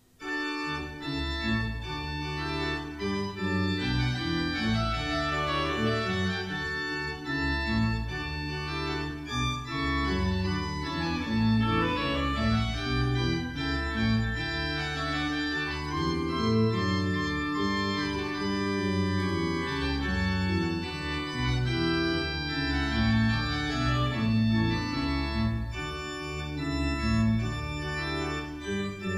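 Church pipe organ playing a piece, starting at once: sustained chords with deep bass notes moving beneath them.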